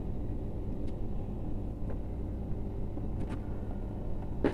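Steady low rumble of background noise, with a few faint ticks from electrical wires being handled and twisted together.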